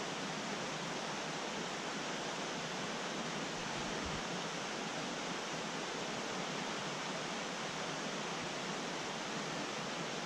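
Steady rush of a fast mountain creek running over rocks and riffles.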